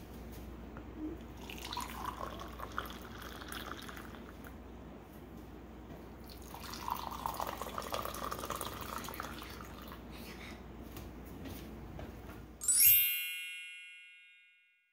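A drink poured into cups in two pours of a few seconds each, the stream splashing into the cup. Near the end a bright chime rings out and fades away.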